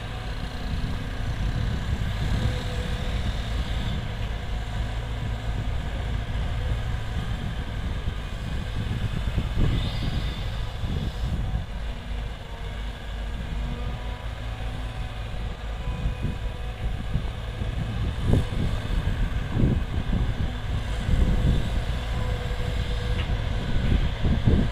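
Diesel engines of Caterpillar hydraulic excavators running as one digs dirt and swings to load it into a dump truck: a steady low rumble. Clunks and thuds from the digging and loading come more often in the second half, and dirt drops into the truck bed near the end.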